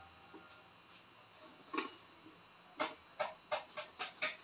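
Metal spoon tapping and scraping in a wire-mesh flour sifter held over a stainless steel bowl while flour is sifted. There is a single sharp tick a little under halfway through, then a quick run of sharp metallic taps, about four a second.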